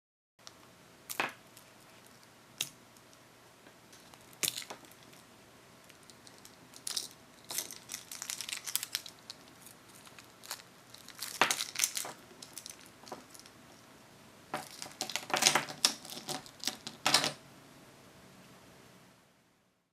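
Plastic toy packaging being handled: crinkling and tearing of thin plastic wrap with sharp clicks and taps, coming in irregular clusters over a faint steady hiss.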